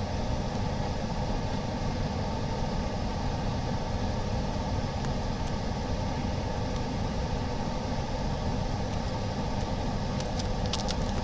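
Steady low hum and hiss of a running machine, unchanging throughout.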